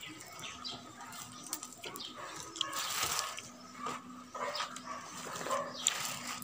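Eating by hand: fingers working steamed rice and fried fish, and chewing. Short animal cries come in over it.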